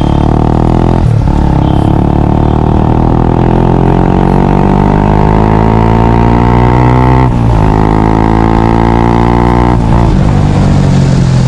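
Single-cylinder Honda CBR125R/150R engine breathing through a Yoshimura R77 full exhaust system, accelerating through the gears. The engine note climbs steadily and dips at each of three upshifts: about a second in, around seven seconds in, and near the end.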